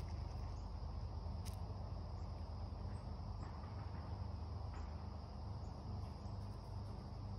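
Steady outdoor ambience: a continuous high insect drone over a low, even rumble, with a few faint clicks.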